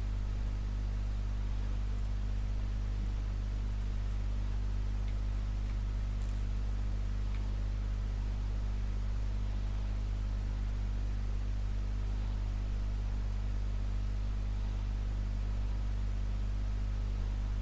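Steady low electrical hum with a faint hiss over it.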